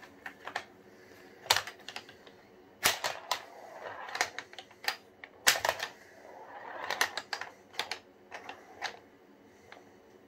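KiwiCo Eureka wooden tabletop pinball being played: the flippers snap and the ball clacks against the playfield parts in irregular sharp clicks, with short stretches of the ball rolling across the board.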